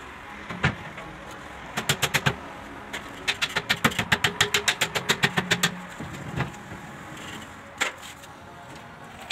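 Quick hammer taps on the top rail of a folding glass balcony system. A short run of about five strikes comes a couple of seconds in, then a longer run of about six strikes a second, with a few single knocks around them.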